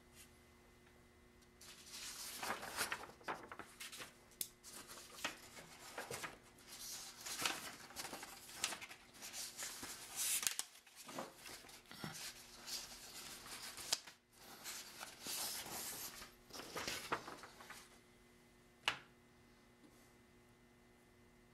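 Hands rubbing and rolling a piece of plasticine clay between the fingers: a faint, uneven rustling that comes and goes for about sixteen seconds. A single click follows near the end.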